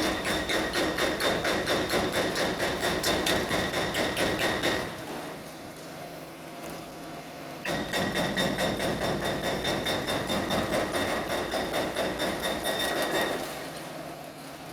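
Hydraulic breaker on an excavator pounding concrete in rapid, steady blows with a metallic ring, in two runs: it stops about five seconds in, starts again about three seconds later, and stops shortly before the end.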